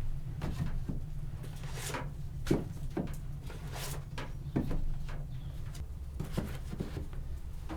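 Irregular light knocks and clicks, about a dozen spread unevenly, as objects are handled in a small room, over a steady low rumble.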